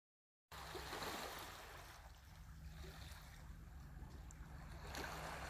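Small sea waves lapping and washing over shoreline rocks, starting suddenly about half a second in and swelling again near the end, over a low steady hum.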